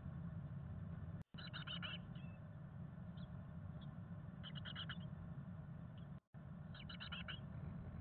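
Chickadee calls: three short bursts of rapid high notes, each a quick run of about half a dozen notes, over a steady low hum. The sound cuts out completely for an instant twice.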